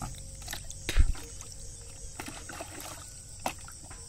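Shallow water sloshing and splashing as a caught carp is handled and put into a plastic bucket standing in the water, with one heavy thump about a second in and a lighter knock about three and a half seconds in.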